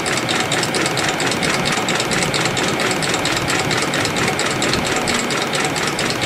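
CNC spring coiling machine running steadily, feeding and coiling 0.2 mm wire into small compression springs: a fast, even clicking over a constant machine hum.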